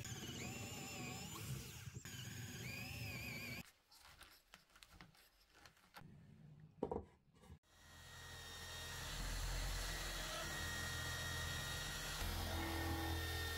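Corded power drill boring into a pine block, its whine wavering under load, stopping a little over three seconds in. A few clicks and a sharp knock follow. Near eight seconds the drill starts again, clamped in a bench holder, spinning up a sanding disc and running steadily.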